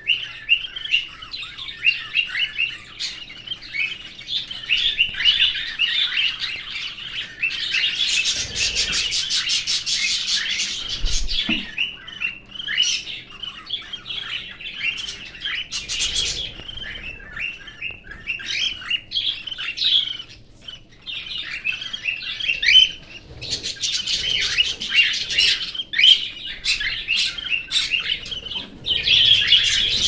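Cockatiels chirping continuously in an aviary, many overlapping short calls. Twice, about eight seconds in and again about twenty-four seconds in, the calls run into a fast rattling chatter.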